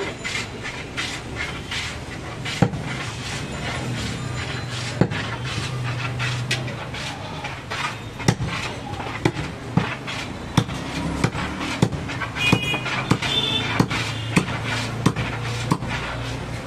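Large butcher's knife chopping mutton and bone on a wooden log chopping block: irregular sharp knocks that come more often in the second half.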